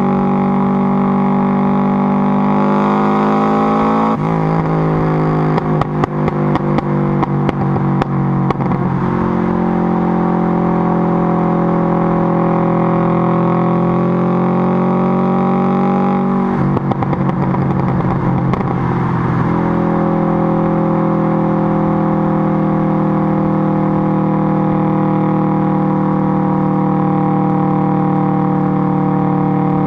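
Subaru Impreza GC8's flat-four exhaust through a Twister muffler, heard right at the tailpipe while driving: a steady, deep drone. About four seconds in the note drops and a run of crackles and pops follows for several seconds; just past halfway the note breaks up into crackling again for a few seconds before the steady drone returns.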